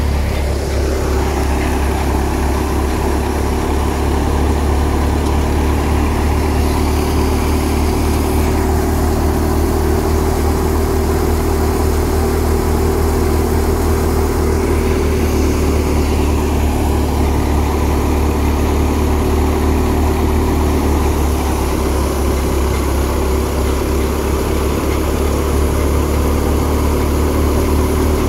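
Tractor-driven grain thresher running steadily under load, powered by the tractor's diesel engine, a constant, even machine hum.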